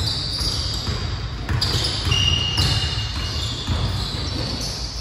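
Basketballs being dribbled, many quick overlapping bounces on a hard court.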